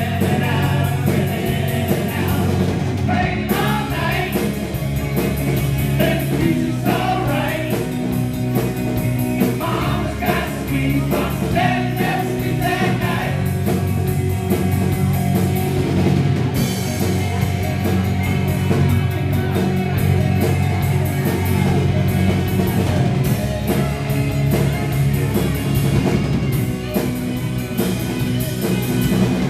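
Live rock band playing: electric guitars, electric bass and a Tama drum kit, with a man singing.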